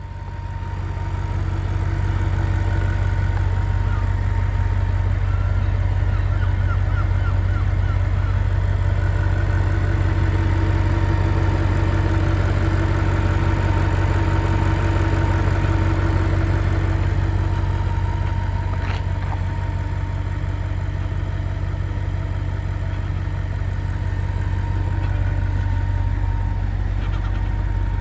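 Audi RS5's 4.2-litre naturally aspirated V8 idling steadily: a deep, even hum that grows louder over the first couple of seconds and then holds.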